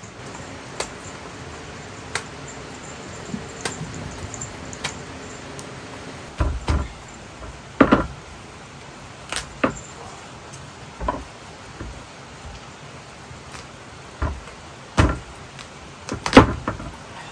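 Kitchen knife cutting a green pumpkin on a wooden chopping board: irregular sharp knocks and thuds as the blade goes through the rind and hits the board, the loudest near the end.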